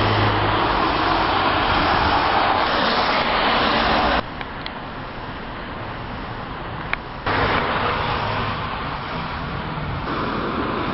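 Steady rushing outdoor noise of a wet street, with no voices. It comes in separate clips that cut in and out abruptly about four and seven seconds in, the middle one quieter, with a single click shortly before the second cut.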